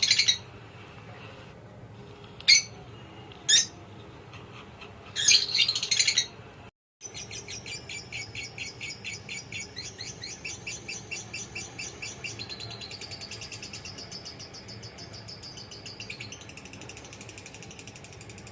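Small birds chirping: a few loud bursts of high chirps in the first six seconds, then, after a brief break, a long run of fast, evenly repeated chirps that shifts pattern twice.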